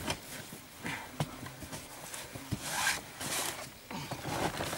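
A knife blade scraping and picking at damp, packed soil, with scattered small knocks and a few longer scrapes about halfway through.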